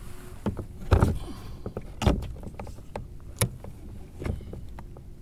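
Bait and gear being handled in a kayak: four separate knocks and clunks about a second apart, the first two the loudest, with small rattles in between.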